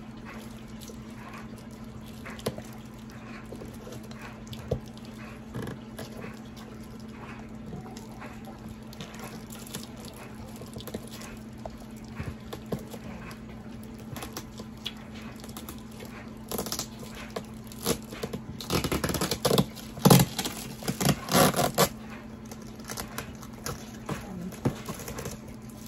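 A cardboard shipping box being handled and opened by hand: scattered scrapes and clicks, then a run of louder scraping and crackling of cardboard and packing tape from about seventeen to twenty-two seconds in, over a steady low hum.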